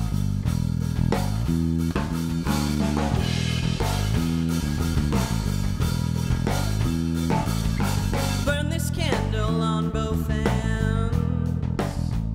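Rock song playing: bass guitar and drum kit driving a steady groove, with a lead vocal line entering about three-quarters of the way through. The mix is run through 1176 FET compressors in all-buttons-in mode, for heavy, saturated compression.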